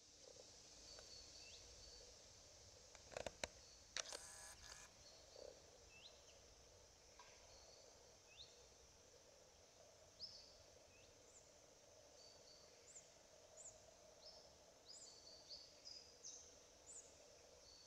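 Faint outdoor ambience with scattered short, high bird chirps: single notes that dip quickly in pitch, coming irregularly every second or so and more often near the end. A few sharp clicks and a brief rustle stand out about three to four seconds in.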